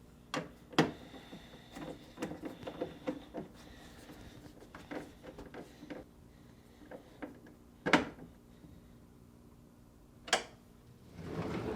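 Clicks and knocks from handling a refrigerator's freezer drawer door: a run of small rapid clicks, as from tightening its mounting bolts with a nut driver, and louder single knocks about eight and ten seconds in, typical of the drawer being pushed shut.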